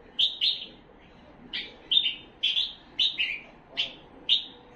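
Himalayan bulbul singing: a run of short, bright notes in quick groups of two or three, some falling in pitch, with brief pauses between groups.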